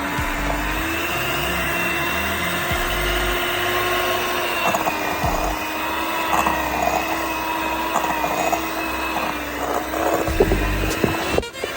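Electric hand mixer running steadily with a slightly wavering motor whine, with a few knocks near the end.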